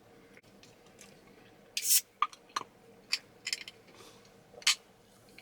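Eating sounds close to the microphone: a short crackle a little under two seconds in, then scattered crunching clicks of chewing.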